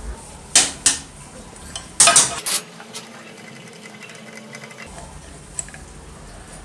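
Short metallic clinks and rattles from the arbor bolt and blade flange of an old SDK L-806 metal-cutting circular saw as the bolt is worked loose and taken out. There are two clinks around half a second in and a quick cluster about two seconds in.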